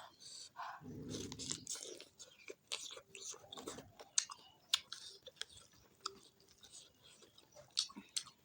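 Close-miked eating sounds: a person chewing and biting food with wet clicks and crunches, irregular and continuous.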